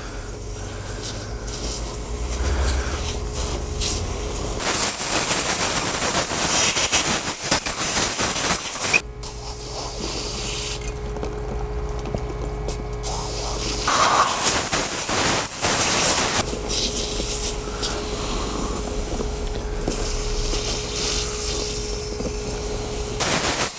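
Brake cleaner hissing from a refillable pressurized spray can onto a brake caliper, in separate bursts: a long one of about four seconds starting about five seconds in, a shorter one around fourteen seconds, and another starting near the end. A steady low hum with one steady tone runs between the bursts.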